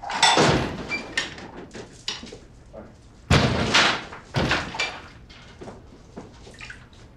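Porcelain bowls and dishes clinking against steel basins as they are washed by hand, with a few heavier clattering knocks about a second apart near the start and middle.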